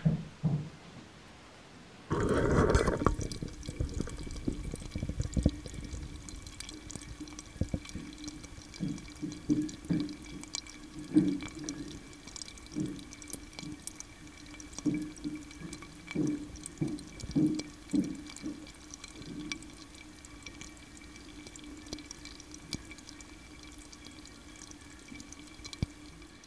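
Doburoku rice mash fermenting vigorously, picked up close to a microphone: irregular small pops and fizzing as carbon dioxide bubbles break at the surface, the sign of lively yeast fermentation. A loud bump about two seconds in.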